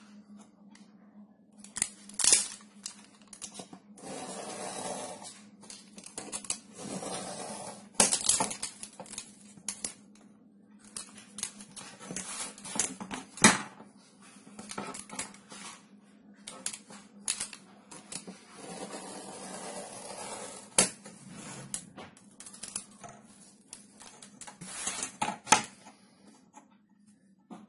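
Utility knife blade drawn repeatedly along a steel ruler, scoring a sheet of board: scraping strokes of a second or two each, with sharp clicks and taps between them.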